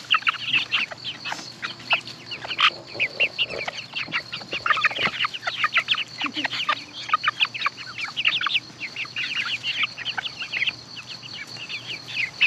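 A flock of young chickens peeping and chirping in quick, overlapping calls while they peck at food on the ground.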